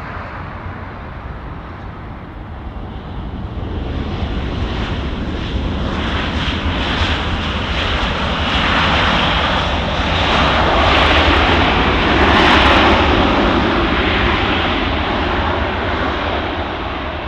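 Jet airliner passing close by: its engine roar swells to a peak about twelve seconds in and then fades away, with a faint falling tone as it goes past.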